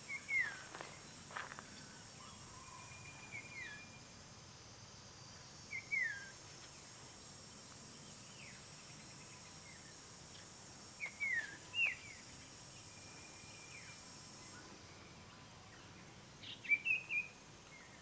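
Birds calling with short whistled notes that slide downward, heard about five times and loudest near the end, over a steady high-pitched insect drone that cuts off suddenly about fourteen seconds in.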